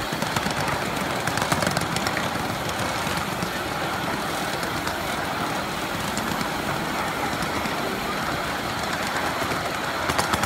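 A ride-on miniature train rolling along the track, heard from the riding cars: a steady noise of small steel wheels running on the rails.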